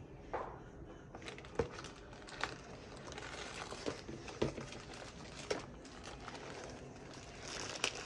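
Thin plastic bag around a mechanical keyboard crinkling and rustling as the keyboard is handled and lifted from its cardboard box, with scattered light taps. The crinkling grows louder near the end.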